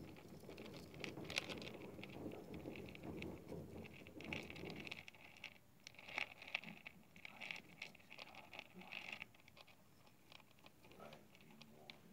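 Hamster running in a plastic exercise wheel: a faint, fast, uneven patter of small clicks and rattles from the spinning wheel, thinning out in the last couple of seconds.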